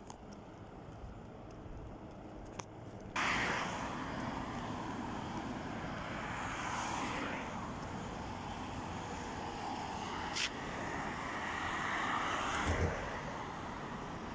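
Road traffic: cars passing on a multi-lane road, their tyre and engine noise swelling and fading. The noise jumps up suddenly about three seconds in, with a short sharp sound near the middle and a low thump near the end.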